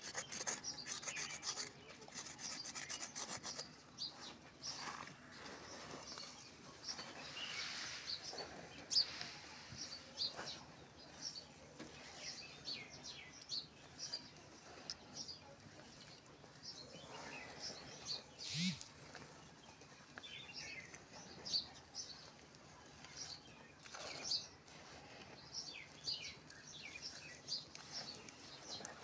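Hands crumbling and rubbing dry, crumbly earth, a continuous run of small crackling crunches. It is fastest in the first few seconds.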